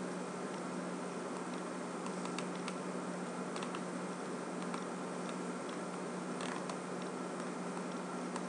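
Faint, irregular clicks of a computer mouse over a steady hiss and a low hum.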